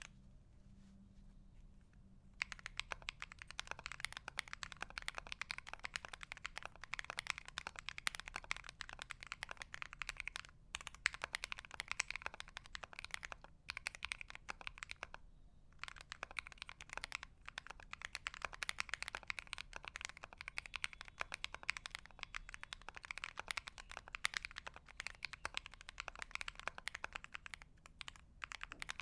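Typing on a custom mechanical keyboard set on a fabric desk mat. Fast, continuous keystrokes start about two seconds in and run on, broken by a few short pauses.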